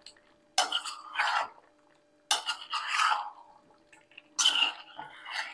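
A metal spoon stirring and scraping chicken pieces around a metal kadai in three rounds of strokes, about two seconds apart.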